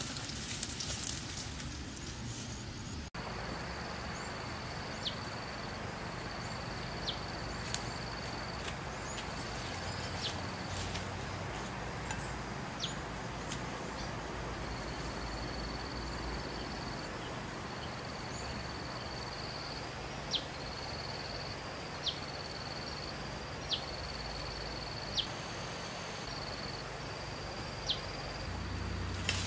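Woodland ambience: insects trilling in long, high, steady stretches, with a short sharp chirp repeating every couple of seconds over a steady hiss.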